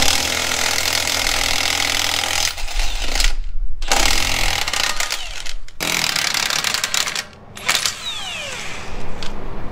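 Cordless impact wrench hammering lug nuts loose to take a wheel off, in three long bursts with short pauses between.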